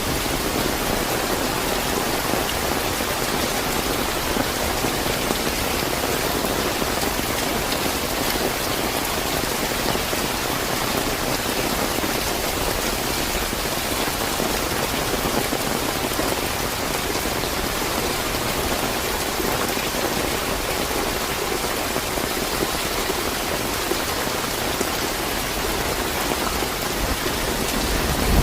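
Steady, fairly heavy rain falling and pattering on surfaces, an even unbroken hiss.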